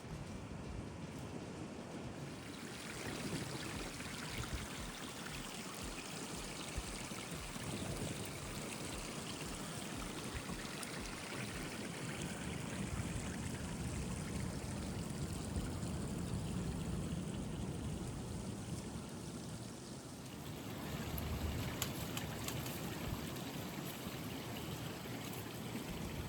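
Creek water rushing through a rocky gorge, with the small waterfall at its head: a steady, even rush.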